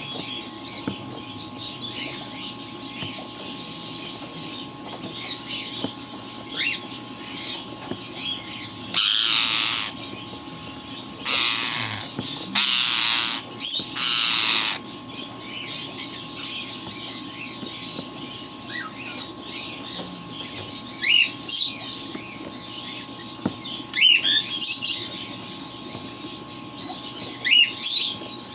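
Pet bird giving scattered short chirps and calls, with several loud, harsh squawks about a third of the way in and a few sharper calls near the end.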